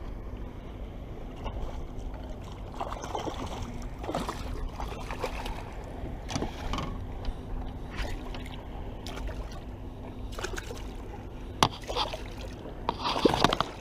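Water sloshing and lapping against the hull of a small fiberglass boat over a steady low rumble, with scattered knocks and clicks. The loudest come about twelve seconds in and near the end.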